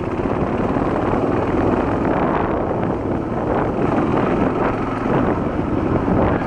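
Honda XL250 single-cylinder four-stroke trail bike engine running steadily as it is ridden along a dirt trail, with wind buffeting the microphone.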